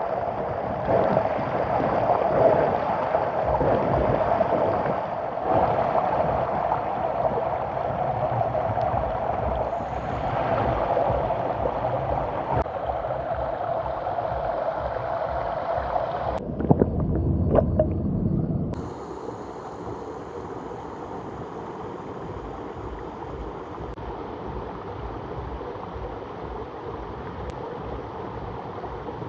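Shallow creek water running over stones, steady. For about two seconds past the middle a low rumble takes over, then the flow goes on more quietly.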